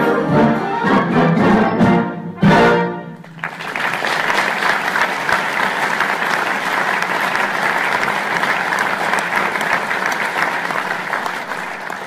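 A military-style concert band, brass to the fore, plays its closing bars and ends on a loud final chord about two and a half seconds in. The audience then applauds steadily.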